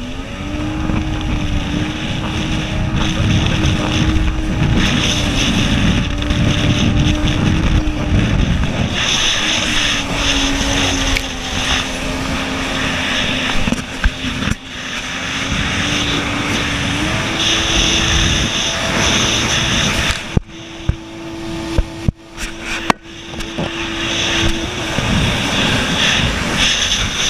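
Jet ski engine running at speed, its steady drone stepping up and down in pitch a few times, over the rush of water spray and wind on the microphone. The sound dips briefly several times about three-quarters of the way through.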